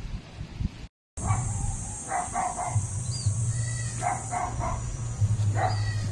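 Goat bleating in three short bouts about two seconds apart, over a steady low hum.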